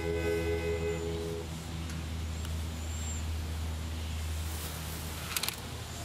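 The last chord of an acoustic guitar and harmonica blues in E is held and then stops within the first second and a half. A steady low rumble continues under it, and a few faint clicks come near the end.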